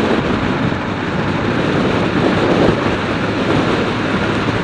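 Steady rush of wind and road noise from a vehicle moving at speed, with wind buffeting the microphone.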